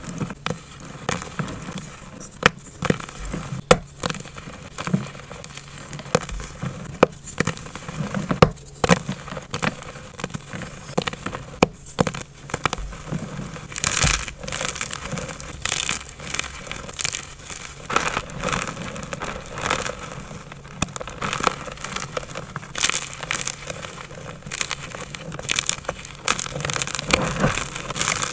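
Blocks of gym chalk being crushed close to the microphone: a steady run of crunching and crackling with many sharp snaps, growing denser and brighter in the second half.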